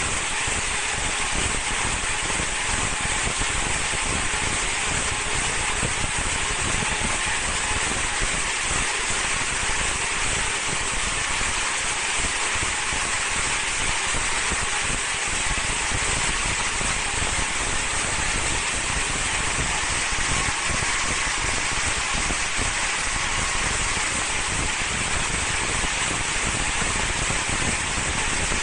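Vertical high-speed film slitting machine running: a steady, even hiss and whir that holds one level throughout.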